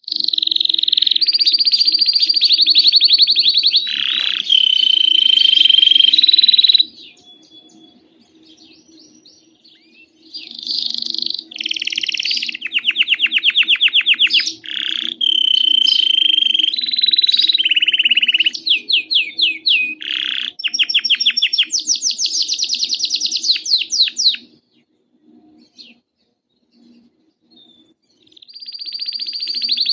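Domestic canary singing: rapid trills and rolls alternating with held whistled notes, in loud phrases. The song breaks off about seven seconds in and again near the end, resuming each time after a few seconds.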